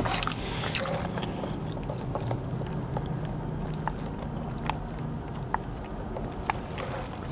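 Soft mouth sounds of chewing a burger and sipping soda through a straw, with scattered small clicks, over a low steady hum.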